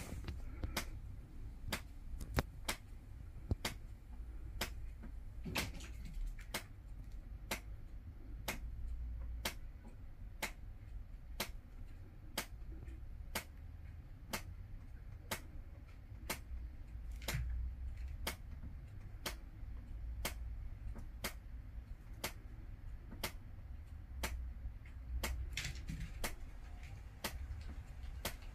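A clock ticking steadily, about two ticks a second, over a low rumble.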